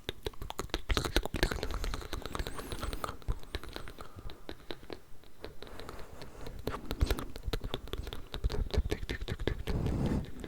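Layered ASMR mouth sounds: dense, rapid wet clicks and smacks close to the microphone.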